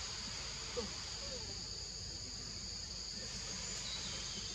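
Steady high-pitched insect chorus droning without a break, with a few faint short gliding calls about a second in.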